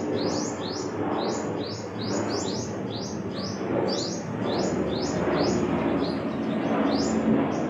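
A small bird chirping repeatedly, about three short high chirps a second, over a steady low background rumble.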